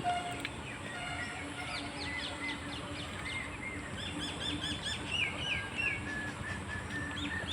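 Birds chirping: many short, high calls in quick runs, busiest in the middle, over a faint low steady tone.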